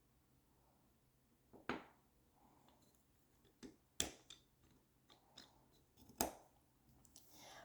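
A handful of faint, sharp clicks and taps of quadcopter frame parts being handled and fitted together by hand, the strongest about two, four and six seconds in.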